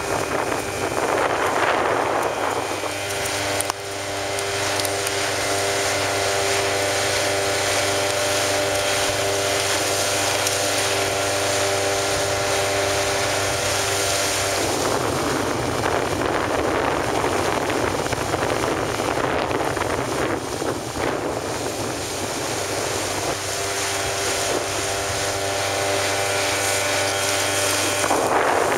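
Small tiller-steered outboard motor running at a steady cruising speed, with strong wind buffeting the microphone. For several seconds in the middle, and again near the start, the wind noise drowns out the engine's steady tone.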